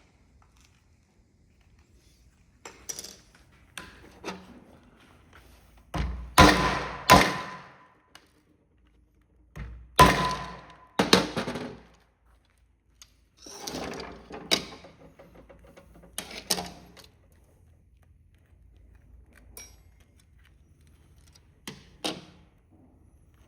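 Irregular knocks and clacks of hard plastic as a remote control's casing is worked and pried open, the loudest strikes coming about six and ten seconds in.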